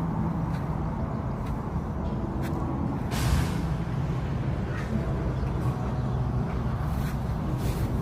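A motor vehicle's engine running steadily with a low hum, and a short hiss about three seconds in.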